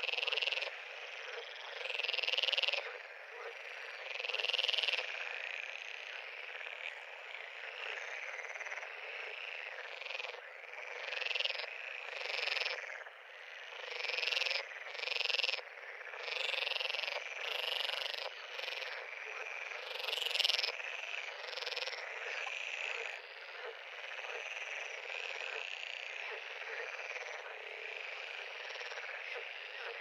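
Frog pond chorus: many frogs calling at once in a dense, continuous din. Louder single calls stand out every second or two for most of the stretch, and the chorus evens out into a steady background near the end.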